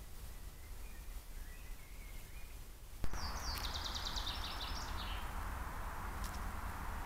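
Woodland background on trail-camera audio: faint bird song in the first half, then a sudden click and a steady hiss, over which a songbird gives a rapid trill of high notes for about a second and a half.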